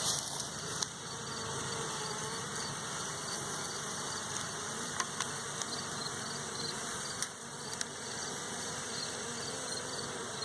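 A mass of honey bees buzzing steadily around an open-air hive being worked, with a few faint clicks and knocks.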